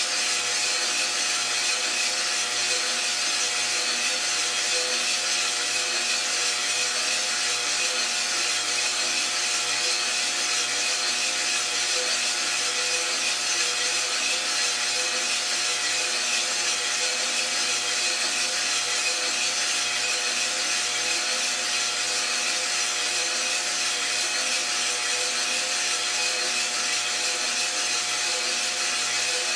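Iroaster600 drum coffee roaster running steadily mid-roast: a continuous motor and fan hum with the rushing rattle of coffee beans tumbling in the drum.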